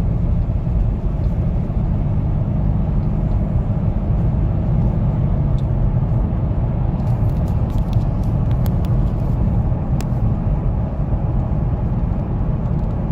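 2007 Nissan Xterra's 4.0-litre V6 running, a steady low rumble, with a few faint light ticks about two-thirds of the way through.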